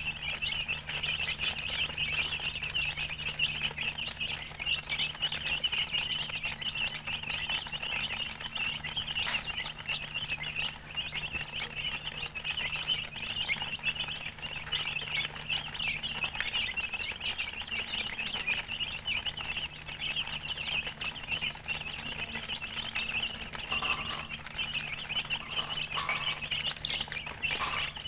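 A brood of chicken chicks peeping continuously, many high chirps overlapping into a steady chorus, with a few lower calls near the end.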